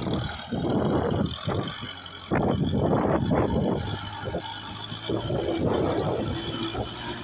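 Kubota tractor engine running under load as its blade pushes rice-field soil: a steady low hum with uneven surges of rumbling noise.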